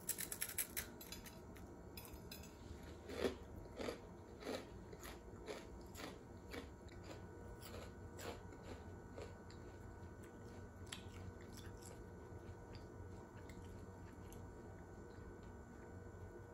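Faint, irregular light taps and clicks: a quick cluster of sharp clicks at the start, then about a dozen separate taps over the next several seconds, thinning out to occasional ticks, over a steady low hum.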